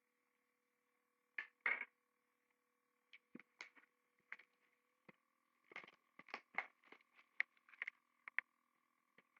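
Packaging of a trading-card box being handled and opened by hand: scattered crinkles and clicks of cardboard and wrappers, coming thicker in the second half. A faint steady electrical hum sits underneath.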